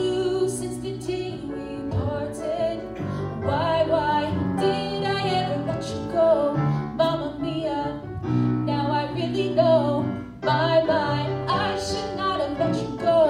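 A young woman singing a solo into a handheld microphone over instrumental accompaniment, her held notes wavering with vibrato.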